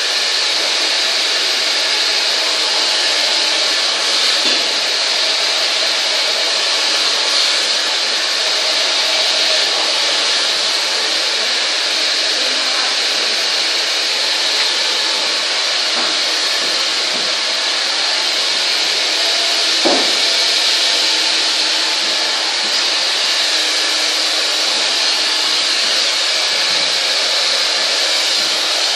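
Hand-held hair dryer running steadily with a rushing hiss, blowing through long hair as it is brushed out. A single brief knock about two-thirds of the way through.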